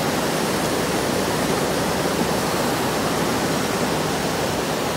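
Muddy outflow from a breached landslide dam rushing down a rock-lined channel: a loud, steady rush of fast water.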